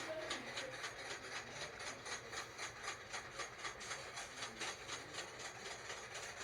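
Roller coaster train climbing the lift hill, its anti-rollback ratchet clicking in a fast, even rhythm.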